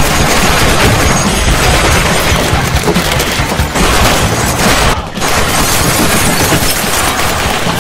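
Film soundtrack: loud music mixed with gunfire and booming impacts, dipping briefly about five seconds in.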